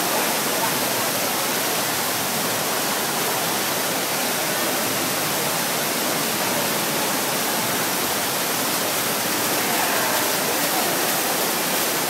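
Large man-made indoor waterfall: a steady, unbroken rush of water pouring down artificial rock into a pool.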